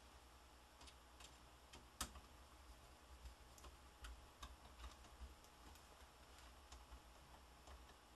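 Faint, scattered clicks of a small screwdriver and plastic parts as a keyboard retaining screw is driven into a Dell Latitude D610 laptop, the sharpest click about two seconds in.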